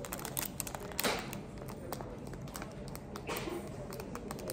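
Small clear plastic packet being handled and picked at by fingers: scattered light clicks and taps, with two brief crinkling rustles, one about a second in and one just past three seconds.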